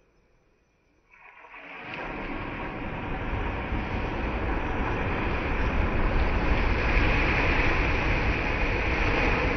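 Wind and surf on a shingle beach: a loud rushing noise with a heavy low rumble. It comes in suddenly about a second in and builds steadily.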